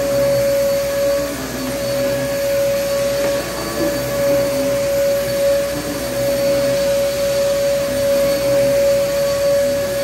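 VacMaster vacuum cleaner running with a steady high motor whine over a rushing of air, its loudness swelling and dipping a little.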